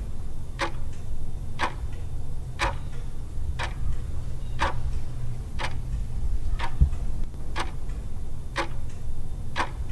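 Clock ticking once a second, ten sharp ticks in all, over a low steady hum: a countdown ticking effect.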